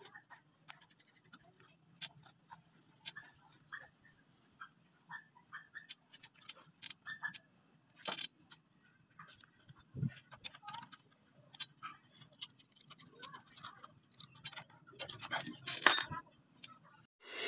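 Light metallic clinks and taps of hand tools and small parts on a Honda TMX 155 motorcycle engine's cylinder head during reassembly, scattered and irregular, with a slightly louder cluster near the end, over a steady faint high-pitched whine.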